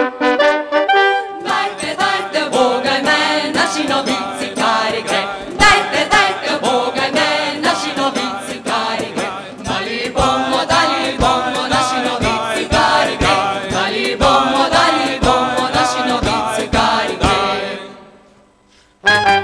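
Live folk band music: a group of voices singing together over steady hand percussion. The music breaks off for about a second near the end, then starts again.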